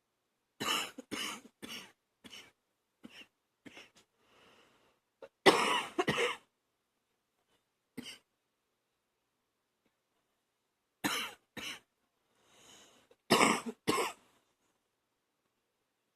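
A woman coughing in short fits of two or three chesty coughs with pauses between them, phlegm rattling in her throat; the loudest fits come about five and a half seconds in and near thirteen seconds.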